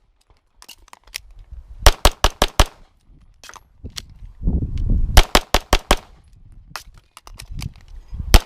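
Pistol shots fired in quick strings of about five shots, with pauses of a second or two between strings.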